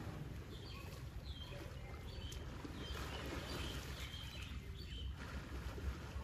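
Muddy water sloshing as Asian elephants shift and roll in a shallow pool, over a steady low rumble, with short high bird chirps scattered throughout.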